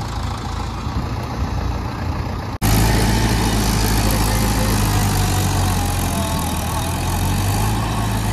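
Tractor diesel engines running steadily while rotavators churn a flooded paddy field, puddling it. About two and a half seconds in the sound breaks off for an instant and comes back louder, with a steady low engine drone.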